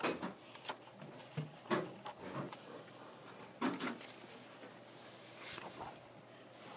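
A few scattered light knocks and rustles, about half a dozen short sharp sounds, over quiet room tone.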